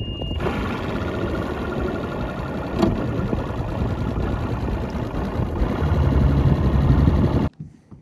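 Mercury OptiMax two-stroke outboard motor running with the boat under way, a steady engine noise that grows heavier in the low end over the last couple of seconds and then cuts off suddenly near the end.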